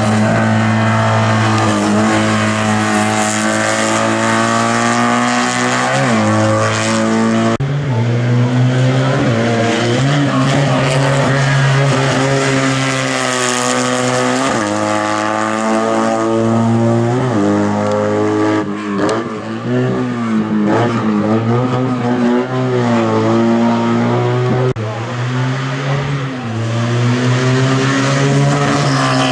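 Race car engine held at high revs, its pitch climbing and then dropping suddenly again and again as the driver works the throttle and gears through the slalom course.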